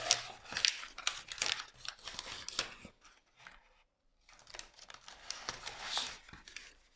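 Self-adhesive vinyl film and its paper backing crinkling and crackling as the sheet is handled and the backing is peeled back, with a pause of about a second midway.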